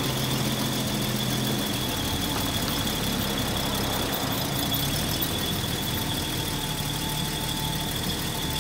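1979 Datsun 280ZX's stock straight-six idling steadily, with a thin, tinny exhaust note. A steady high whine runs over the idle.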